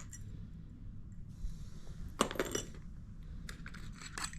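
Jitterbug 2.0 topwater lure shaken by hand, its internal rattle giving hard clicking knocks: a quick cluster about two seconds in and a few single clicks near the end.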